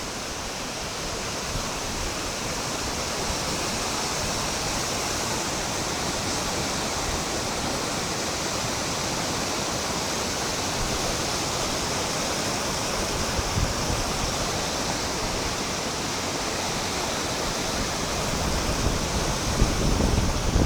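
Piracicaba River water rushing steadily, an even hiss of flowing water. Near the end, low gusts of wind buffet the microphone.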